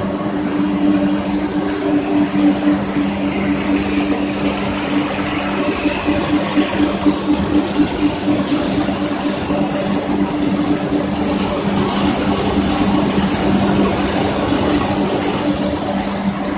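Pet food pellet extrusion line running: a steady electric-motor hum under a dense mechanical noise of machinery and pellets moving through it.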